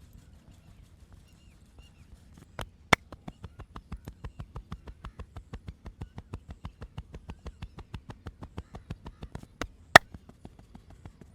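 Percussive massage strokes: hands slapping rapidly and evenly on the body, about six or seven strikes a second for some seven seconds. A pair of much louder, sharp smacks opens and closes the run.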